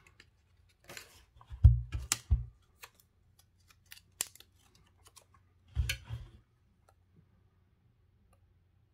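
Close handling noise: sharp clicks, taps and light thumps as small plastic port-cover stickers are peeled from their backing and pressed onto a phone, loudest about two seconds in and dying away after about seven seconds.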